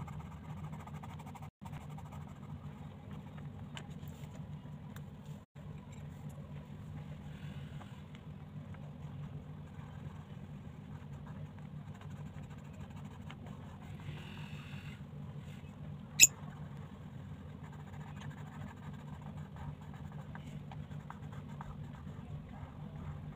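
Colored pencil shading on paper, a soft continuous scratching of strokes over a steady low hum. One sharp click about sixteen seconds in.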